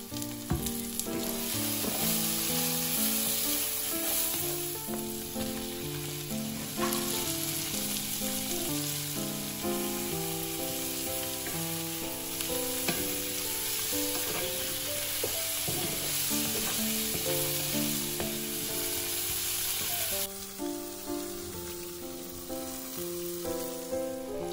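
Onions, garlic and butter, and then whole shrimp, sizzling as they fry in a cast-iron skillet, stirred now and then with a wooden spatula. The sizzle stops about 20 seconds in. Gentle background music with held notes plays throughout.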